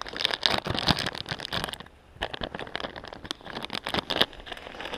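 Footsteps through dry leaves, twigs and brush on a bank: a dense run of crackles and scrapes that pauses briefly about two seconds in.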